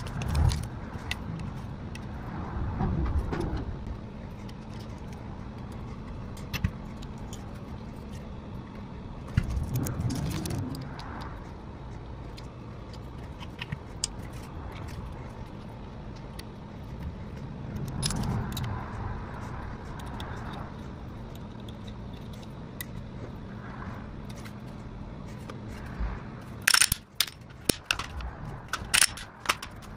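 Handling noise of small metal parts and a plastic parts bag: rustles and light clinks, with a run of sharp clicks near the end as a Glock 43X pistol is handled. A low steady hum runs underneath.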